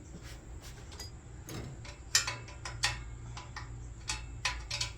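A run of short, sharp metallic clicks and ticks from hand tools working on the truck's exhaust at the header, irregularly spaced at about two or three a second, over a low steady hum.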